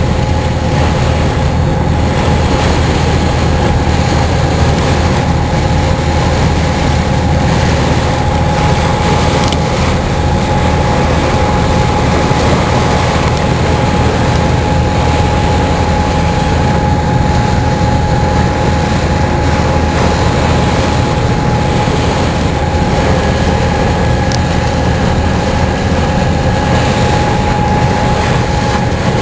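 The ferry's engines running steadily: a deep, even drone with a steady higher hum on top.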